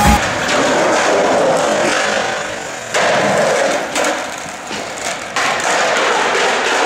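Skateboard wheels rolling on a smooth concrete floor: a steady rushing rumble, with sharp knocks of the board about three seconds in and again a little after five seconds.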